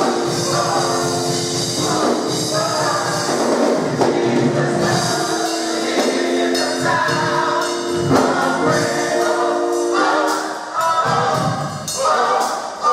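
A gospel mass choir singing in harmony with instrumental accompaniment of held chords, and a tambourine-like jingle keeping the beat.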